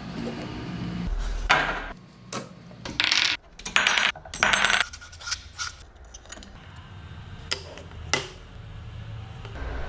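Metal clinking and rattling: several loud, rattly bursts in the first half, then two sharp clicks near the end.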